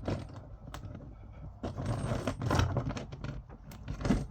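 Irregular small metallic clicks, rattles and scrapes as flexible tap hoses are handled and fed through a kitchen tap's rubber seal and base, growing busier after about a second and a half.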